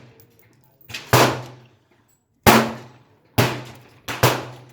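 Springfield XD9 9mm pistol firing Wolf steel-case ammunition: about five sharp shots, roughly a second apart, each dying away quickly.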